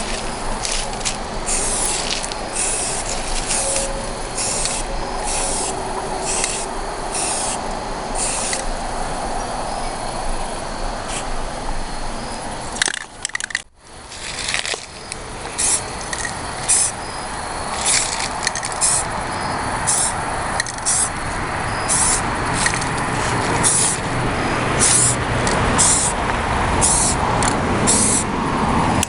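Aerosol spray-paint can hissing in many short bursts, about one or two a second, over a steady background rumble. There is a sudden brief break about halfway through.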